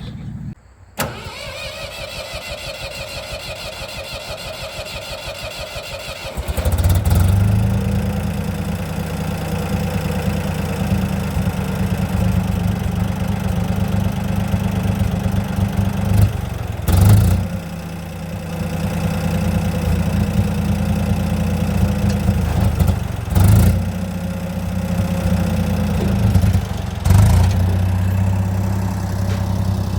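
Case 480 backhoe's four-cylinder gasoline engine cranked over by the starter for about five seconds, catching about six seconds in, then running steadily. Three short louder bursts break the steady run in the second half.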